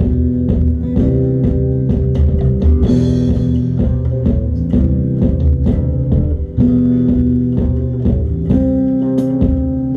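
Post-punk band rehearsal: bass guitar and guitar playing held, repeating low notes over a steady beat, with a brief drop in level about six and a half seconds in.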